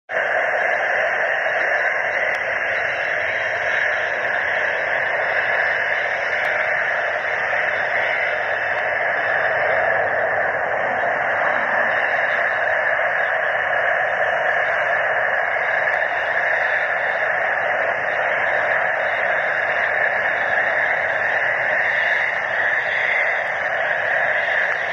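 Panavia Tornado jets taxiing, their engines giving a steady hissing roar that holds unchanged throughout.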